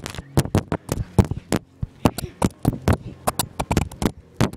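Handheld camera being jostled and tumbled on a trampoline: a rapid, irregular run of sharp knocks and clatter, several hits a second.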